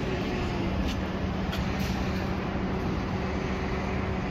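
A steady low mechanical hum over an even rushing noise, like a running engine or machine.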